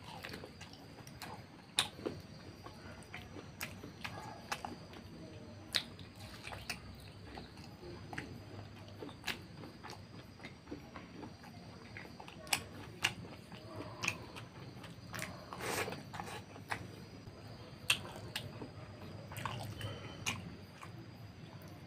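Close-miked chewing of fatty pork curry and rice, with wet lip smacks and irregular sharp mouth clicks.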